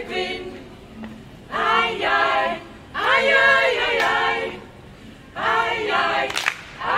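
Women's choir singing a cappella in four short phrases with brief pauses between them.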